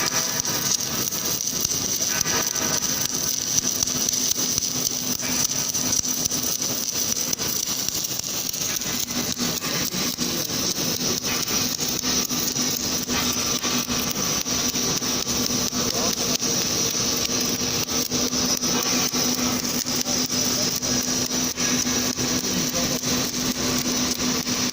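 Submerged arc welding equipment running steadily while cladding 309L stainless steel onto mild steel: a constant hum with a steady high hiss and fine crackling throughout.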